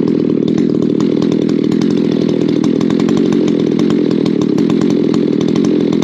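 Ported Echo CS-620 chainsaw held at full throttle, bucking firewood logs, its engine note high and steady.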